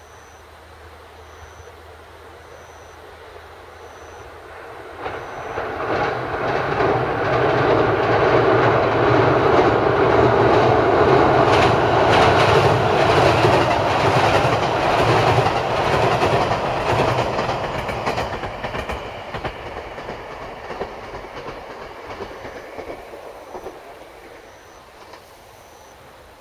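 Electric multiple-unit train crossing a steel girder railway bridge. It rumbles and clatters on the rails, building about five seconds in, loudest in the middle, then fading away as it passes.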